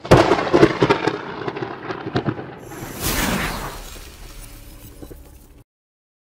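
Logo-reveal sound effect: a burst of crackling, sparking pops for about two and a half seconds, then a whoosh that sweeps downward and fades out, cutting off abruptly near the end.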